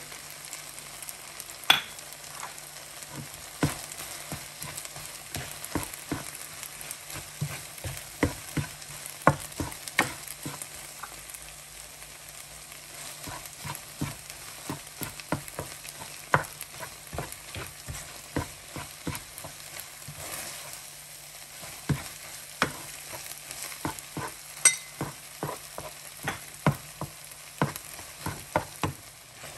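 Black cooking spoon scraping and knocking around a nonstick skillet as egg noodles with scrambled egg and parsley are stirred, in quick irregular strokes. Under it the food sizzles softly on low heat.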